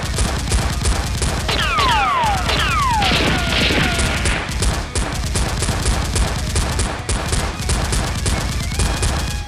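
Rapid, continuous automatic gunfire, many shots a second. Several falling whistles sound about two seconds in.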